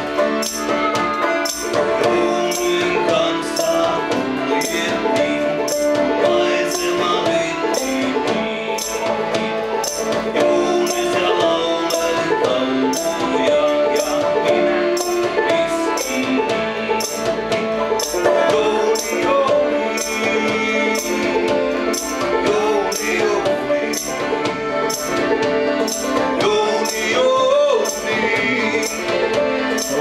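Accordion and five-string banjo playing a folk tune together, over a steady jingling beat like a tambourine keeping time.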